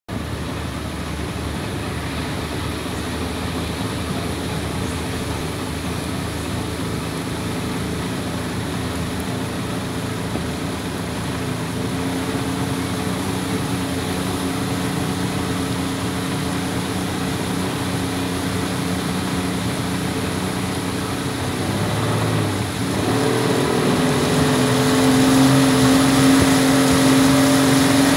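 Boat's outboard motor running steadily under way, with water rushing along the hull. About three quarters of the way through it dips briefly, then revs higher and louder as the throttle opens.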